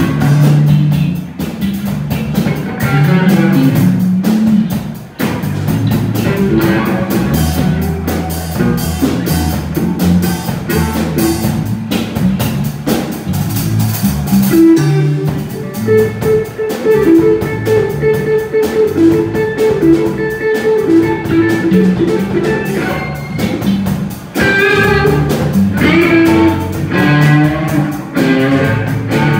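Live band playing electric guitar, bass guitar and drum kit, with a guitar repeating a short figure through the middle.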